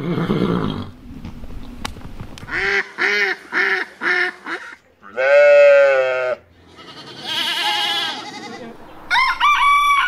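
A run of different farm animal calls one after another: a rough call at the start, a series of short repeated calls, a sheep's long bleat about five seconds in, a wavering call, then a rooster starting to crow near the end.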